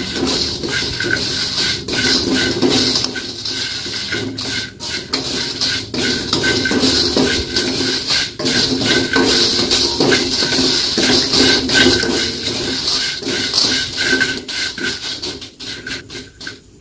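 Wooden spatula stirring and tossing dry instant noodles in a stainless steel wok, with irregular knocks and scrapes of wood against the metal; it quietens near the end.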